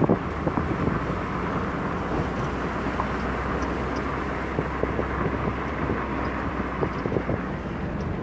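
Car driving at speed on a rough road, heard from the cabin: steady road and wind noise with a low engine hum, and frequent small knocks and rattles, thickest around the start.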